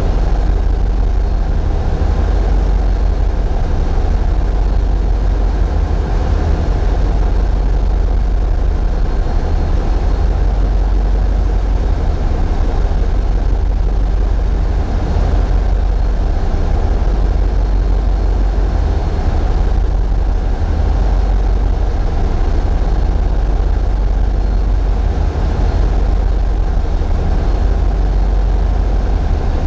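Tugboat's diesel engines running steadily: a constant deep rumble that does not change, muddied by vibration from a camera mounted where it shakes with the hull.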